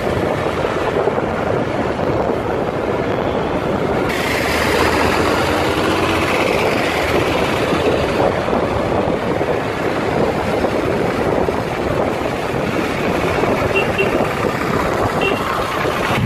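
Steady rush of wind and road noise from riding on a motorcycle in traffic, with the engine running beneath; the wind on the microphone gets brighter and hissier about four seconds in.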